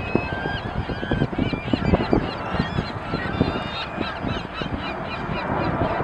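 A large mixed flock of gulls (ring-billed, western and California gulls) calling all at once, many short overlapping cries and squeals, with wind buffeting the microphone.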